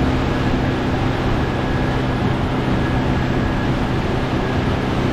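A 50 hp outboard motor running steadily at cruising speed with a low, even hum. Wind and rushing water from the moving boat add a constant noise.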